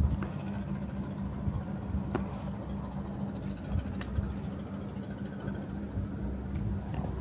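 Steady low mechanical hum with low rumbling under it and a few faint clicks.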